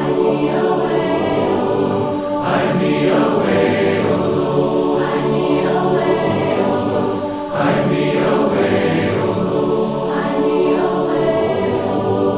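A choir singing a hymn, many voices holding long sung notes together.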